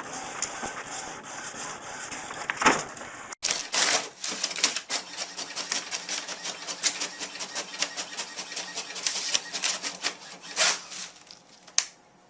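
A printer working: a steady whir, then after a sudden break about three seconds in, rapid irregular clicking and rattling that stops near the end with a final click.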